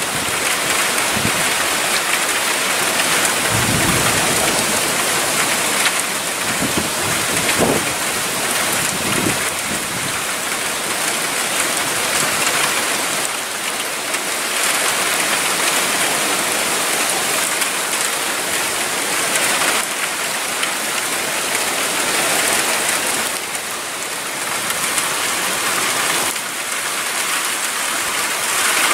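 Heavy thunderstorm rain pouring steadily, with a few low rumbles of thunder in the first ten seconds or so.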